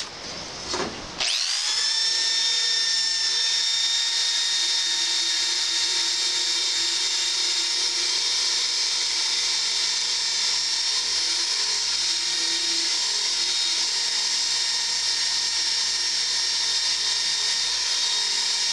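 Hitachi electric drill fitted with a wire wheel brush starts about a second in and runs steadily, with a high motor whine over the scraping of the wire bristles as they scour rust from a cast iron skillet.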